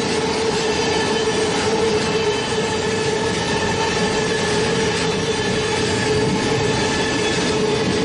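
Train running at a steady speed: an even rumble and hiss with a steady whining tone that does not change.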